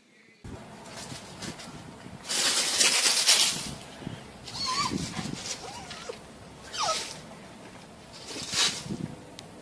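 A dog's short high yelps, about three times, each falling in pitch, with a loud rustling noise about two seconds in.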